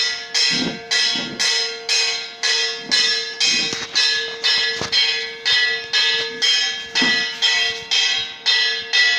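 A bell struck steadily about twice a second, each stroke ringing out and fading before the next, over a steady held tone.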